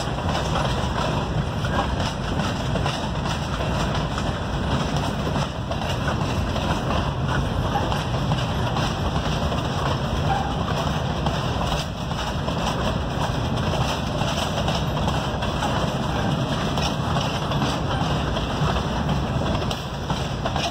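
Empty freight cars, hopper cars and boxcars, rolling past on steel wheels: a steady noise of wheels running on the rails, with fine irregular clicking through it. It eases off a little near the end as the last car goes by.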